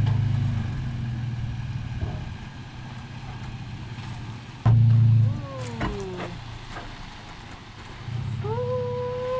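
Pickup truck engine running as it tows a shipping container on wheel dollies, a steady low hum that is loud at first, drops back, and swells briefly about five seconds in. A squeal falling in pitch follows the loud stretch, and a steadier squeal sounds over the engine near the end.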